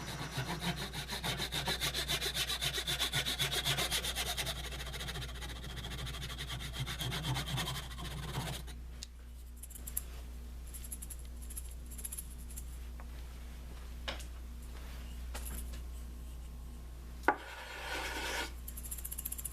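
Something held against maple spinning on a lathe, rubbing in a quick back-and-forth rhythm over the steady low hum of the lathe. The rubbing stops about nine seconds in, leaving the hum and a few clicks.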